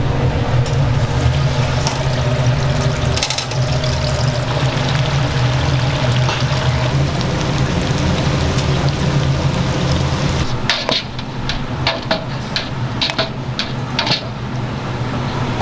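Commercial fried-chicken kitchen: a steady low machine hum with a liquid, sizzling or pouring wash over it. About ten seconds in, the hum drops and a quick run of sharp clicks and clatter begins, like utensils or tools knocking on metal.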